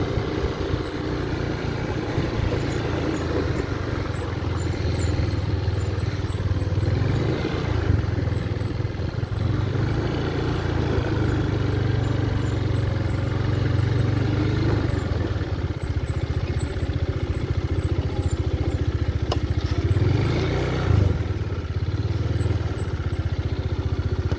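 Motor scooter engine running steadily as the scooter is ridden, a low hum under road and wind noise.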